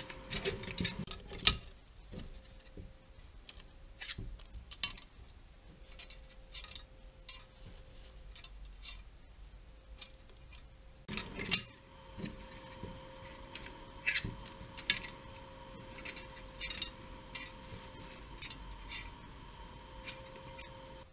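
White disposable plastic cutlery (spoon, fork and knife) being handled and laid down on a paper towel: scattered light clicks and taps, busiest at the very start and again just past halfway.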